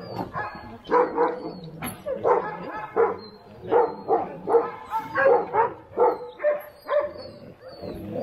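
Alaskan husky sled dogs barking and yipping, short repeated calls about two a second.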